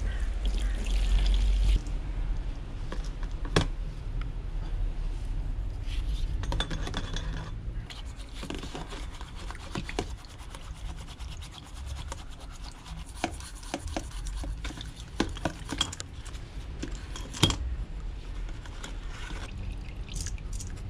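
Liquid pouring from a plastic jerry can into a plastic tub for about the first two seconds. Then a bristle brush scrubs taper roller bearings in the liquid, with a few sharp clicks and knocks of metal against the tub.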